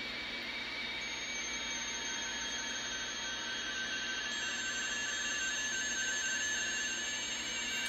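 Shortwave static hissing from a vintage National NC-173 receiver tuned to 20 metres, with a faint radioteletype signal's steady tones in the noise. The tuning is weak, with the beat frequency oscillator possibly set wrong.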